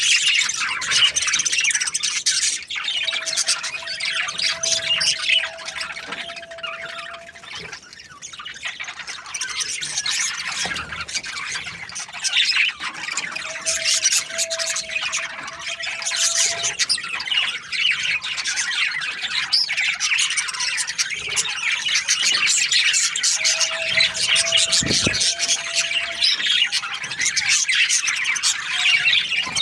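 A group of budgerigars chattering, chirping and squawking continuously in rapid, overlapping calls. A fainter steady tone sounds underneath three times, each lasting a few seconds.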